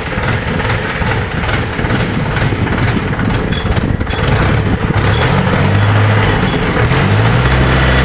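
Mahindra tractor's diesel engine running, becoming louder and steadier with a low hum about five seconds in.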